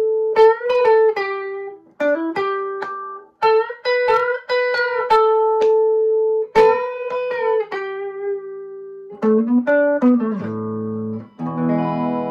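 Les Paul electric guitar with both humbuckers selected in their normal, in-phase setting, played as picked single-note lead phrases with some held notes, moving to lower chords about ten seconds in.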